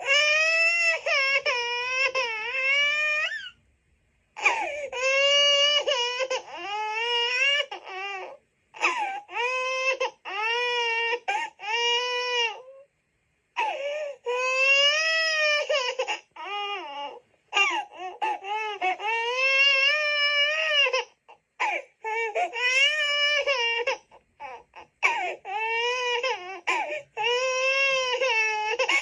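A young child crying in a run of long, high-pitched wailing cries, each lasting a second or more, with short catches of breath between.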